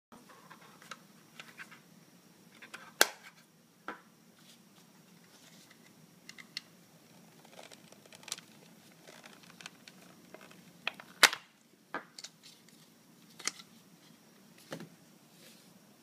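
A plastic alarm keypad case handled and pried apart by hand: scattered plastic clicks and knocks, with two loud sharp snaps about three seconds in and about eleven seconds in.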